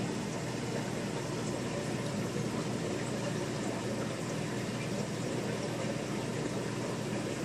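Steady bubbling of an aquarium air stone, an even continuous rush of water and bubbles.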